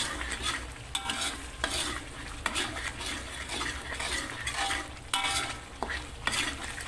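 A metal spatula scrapes and stirs a thick chili spice paste frying in oil in a metal wok, in repeated strokes over a steady sizzle. A few strokes ring briefly against the metal. The paste is being sautéed until the oil separates (pecah minyak).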